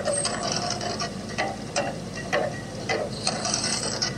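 Volcano attraction's eruption show: sharp clattering strikes at an uneven pace, about two a second, over a steady low rumble.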